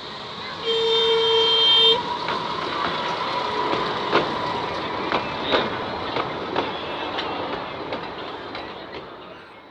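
Miniature train sounding its horn once for about a second, then running with scattered clicks and knocks over a steady rumble that fades out near the end.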